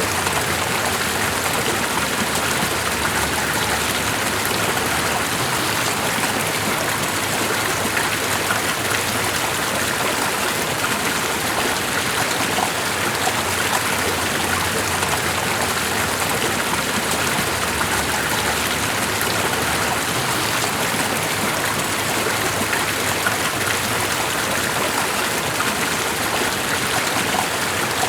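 Steady, even rush of a flowing stream, unbroken throughout.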